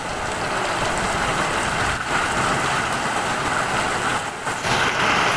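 Heavy hail falling: a dense, steady clatter of hailstones striking the roof and the ground.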